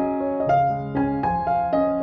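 Solo piano music: notes struck about every half second over held lower notes.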